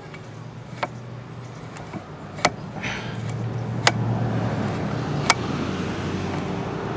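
Four sharp metallic clicks, about a second and a half apart, from a Yamaha 3 HP outboard's throttle linkage at the carburetor as the tiller throttle is turned back and forth. A low steady hum grows louder from about three seconds in.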